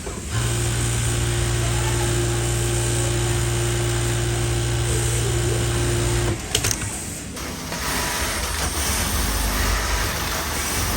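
Garment-factory machinery running with a steady hum and a held tone. It stops abruptly about six seconds in with a click, and a noisier machine sound carries on.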